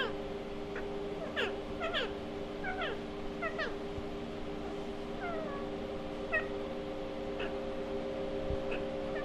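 Pet green parakeet making soft squeaky chirps while being stroked on the head and beak: about a dozen short calls, many in quick pairs and mostly falling in pitch, over a steady low hum.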